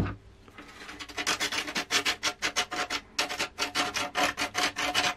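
A thin metal tool scraping back and forth along the rusted edge of a steel shield plate, in quick repeated strokes several times a second with a faint metallic ring. The strokes start about a second in and pause briefly near the middle. The scraping is rubbing at the heavy rust on the plate.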